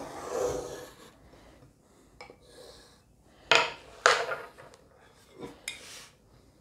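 Pencil scratching on paper as it traces around a plate, stopping about a second in. Then a few short knocks and scrapes as the plate is handled on the table and lifted off the paper.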